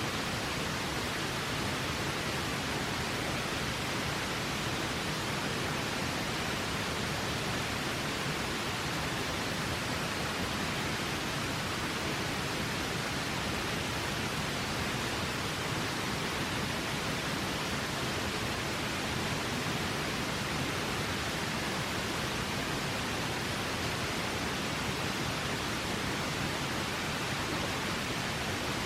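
A river's steady rushing water, an even unbroken hiss with no changes.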